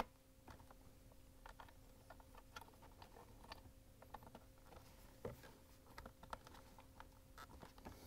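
Faint, irregular clicks and taps of plastic wiring-harness connectors being handled and pushed down onto a dishwasher main control board by gloved fingers, with a sharper click right at the start and another about five seconds in.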